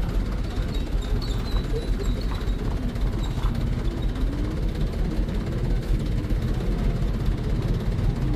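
A truck's diesel engine running steadily as the truck pulls away over a rough gravel road.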